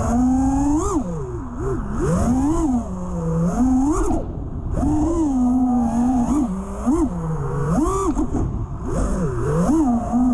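A five-inch FPV racing quadcopter (KinFPV Atlas5 V2) flying freestyle: its four Cricket 2306 1750kv brushless motors and beat-up T-Motor 5147 props whine, the pitch rising and falling again and again as the throttle is punched and cut through the tricks.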